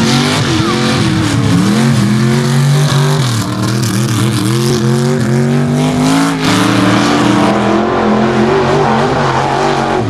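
Mud-bog trucks' engines revving hard at high rpm as they drive through dirt and mud, the pitch sagging and climbing with the throttle. The sound changes abruptly about six and a half seconds in.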